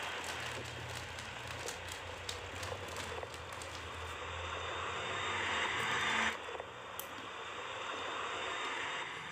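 MAN four-axle dump truck driving on gravel: its diesel engine runs with a low steady hum under a rush of tyre and road noise. The noise swells around five to six seconds in, then drops off suddenly.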